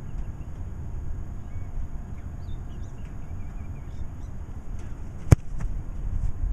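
A single sharp thump of a foot striking an American football off a kicking tee, about five seconds in, over a steady low rumble of wind on the microphone. A few faint bird chirps come earlier.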